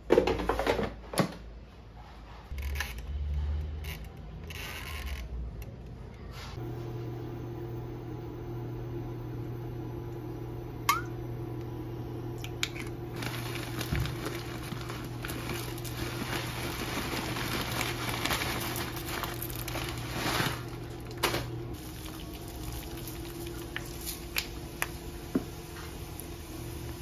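Oil sizzling in a small cast-iron skillet as chopped aromatics fry, over a steady electrical hum from the induction cooktop that starts about a quarter of the way in. A few sharp taps and clinks of utensils and pan are scattered through it.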